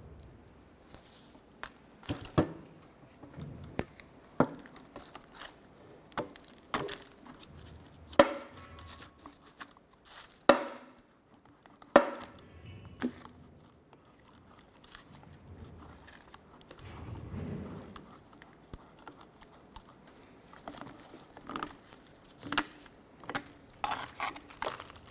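Irregular metal clinks and knocks as a wrench and a loosened rusty bolt are handled and the bolt is worked out of an old rear trailing arm's bracket and bushing. A few of the knocks stand out sharply.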